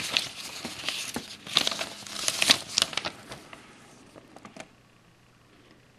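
Paper instruction booklet handled and flipped open, its pages rustling and crinkling with small clicks. It dies away after about three seconds, with a few faint ticks before going quiet.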